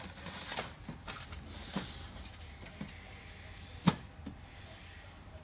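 Plastic body of an HP Color LaserJet Pro M181fw printer being handled and turned around on a bench: scraping and several light knocks, with one sharp knock about four seconds in.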